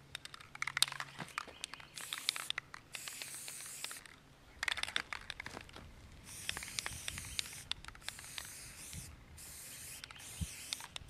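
Aerosol spray-paint can hissing in a series of short bursts, about seven, as a light base coat is sprayed onto a deer skull.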